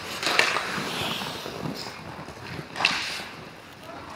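Ice hockey rink sounds during play: skates scraping the ice, with two sharp scrapes or clacks, one about half a second in and the louder one near three seconds.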